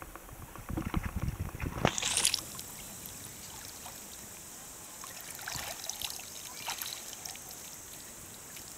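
Water splashing as a person swims and pushes up out of shallow river water, with a sharp splash about two seconds in; after that, steady flowing-water hiss with a few small splashes and drips.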